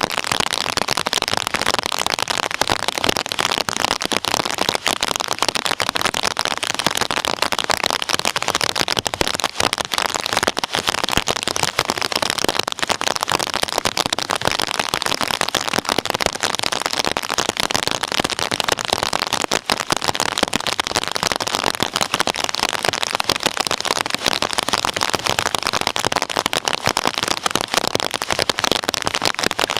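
Heavy rain falling in a thunderstorm: a steady, dense crackling of countless small drops, with no thunder rumble heard.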